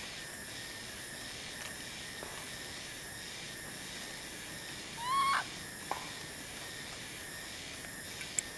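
Steady hissing outdoor background with one short high squeaking animal call about five seconds in, rising and then dropping in pitch.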